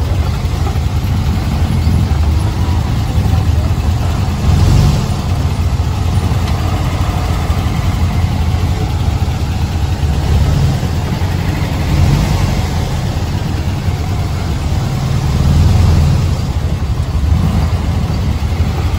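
Dune buggy engine running as the buggy drives along a rough dirt track, heard from on board, a steady low rumble that swells a few times.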